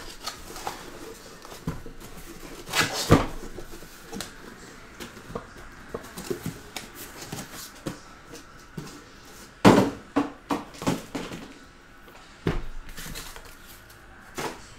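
Cardboard hobby boxes being handled: scraping and rustling as they are slid out of a cardboard shipping case, with a few sharp knocks as boxes are set down, the loudest about 3 seconds and nearly 10 seconds in.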